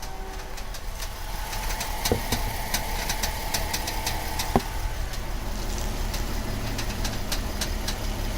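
VW Atlas electromechanical power steering rack creaking and clicking as the wheel is turned from side to side, with the engine idling. The creaking comes from too much tension between the power steering servo motor unit and the steering gear housing, the fault addressed by TSB 48-20-01.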